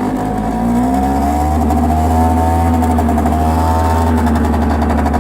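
Hyosung Sense 50 scooter's small two-stroke engine running just after a cold start, idling fast on its automatic electric choke. The note rises a little about a second in, then holds steady.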